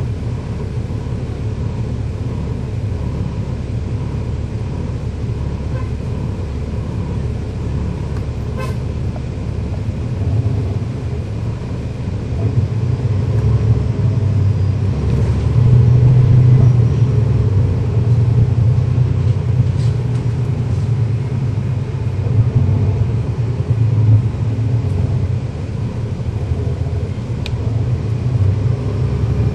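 Cummins ISL9 diesel engine of a NABI 40-SFW transit bus running underway, heard from on board: a steady low rumble that grows louder from about ten seconds in.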